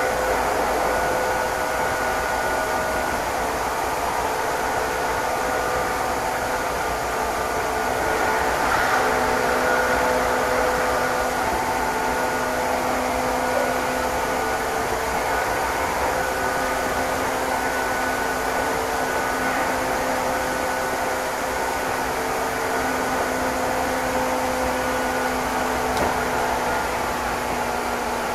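Inside a Meitetsu express train running at speed: a steady rumble of wheels on rail with several steady whining tones from the running gear, one of them changing pitch about nine seconds in.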